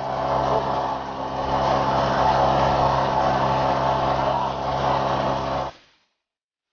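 A boat engine running at a steady speed, with a rush of water and wind. It fades out about six seconds in, and about a second of silence follows.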